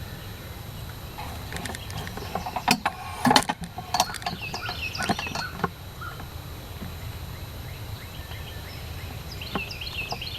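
Songbirds chirping over steady outdoor background noise, with a cluster of sharp clicks and knocks about three seconds in.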